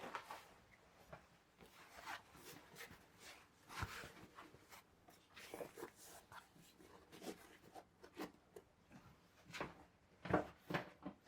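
Light, irregular clicks, knocks and rubbing of objects being handled, with a few louder knocks near the end.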